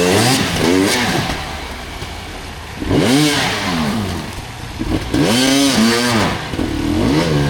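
Off-road dirt bike engine revving up and dropping back in repeated bursts, with a quieter stretch about two seconds in, as the bike works up a rocky climb.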